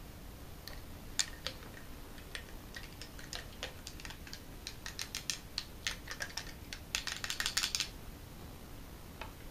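Light plastic clicks and taps from hands working a feeding syringe and a feeding tube's connector, irregular at first, then a quick run of rattling clicks about seven seconds in.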